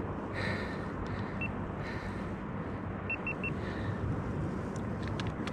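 Steady low rumbling background noise, with four faint short high beeps: one, then three in quick succession about a second and a half later.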